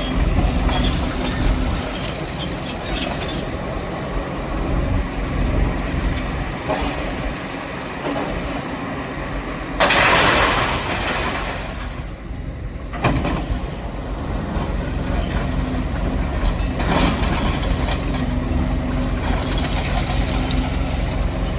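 A heavy excavator's diesel engine runs steadily under the rumble of wind buffeting the microphone. A louder rush of noise comes about ten seconds in, then briefly drops away.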